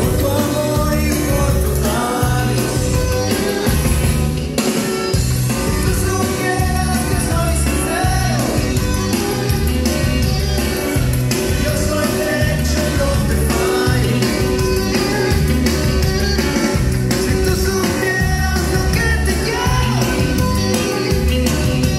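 Loud dance music with singing, played through a DJ's sound system over a steady, pulsing bass beat.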